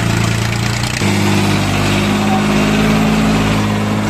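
Tractor diesel engine running steadily, with an abrupt change in its note about a second in.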